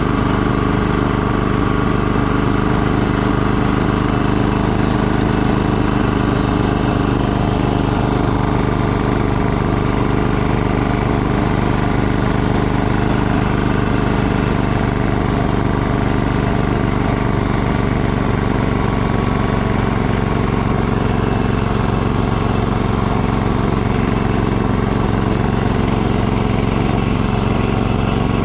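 Gas two-stage snowblower running steadily under load as it clears snow and throws it out the discharge chute.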